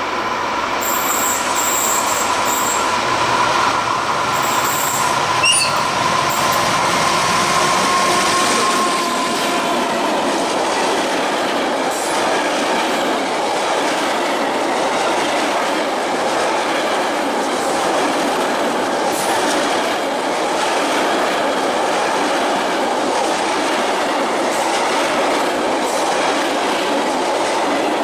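ČD Cargo class 750 diesel-electric locomotive passing close, then a long freight train of wood-chip hopper wagons rolling by with steady wheel-on-rail noise and occasional clicks. A high steady whine sounds for the first eight seconds, then gives way to the even rumble of the wagons.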